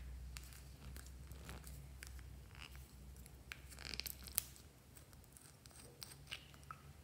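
Plastic cap of a small nail polish bottle being twisted open: scattered faint clicks and crackles of plastic, with a sharp crack about four seconds in as the cap gives.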